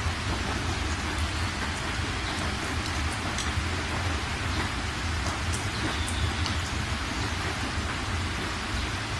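Steady rain: an even hiss with a low rumble underneath and scattered faint high ticks.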